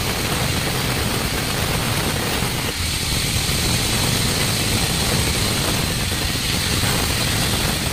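Band resaw running and ripping a wooden plank lengthwise: a loud, steady machine drone with a constant high whine.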